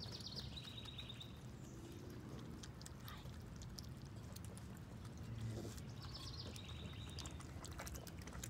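Baby raccoons lapping and smacking at applesauce in a shallow saucer: a run of small, irregular wet clicks. A bird sings a short high trill twice, once at the start and again about six seconds in.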